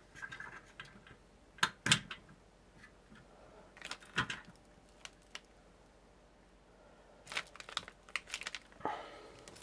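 Scattered sharp clicks and taps of handling: a CPU cooler with its push-pin bracket being positioned and lined up over a motherboard's mounting holes. A pair of clicks comes about two seconds in, one about four seconds in, and a quick run of clicks near the end.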